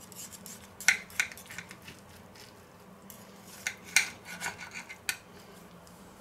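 Knife and fork cutting a meat roll on a ceramic plate: scraping sawing strokes with a few sharp clinks of metal against the plate, about a second in and again near four seconds.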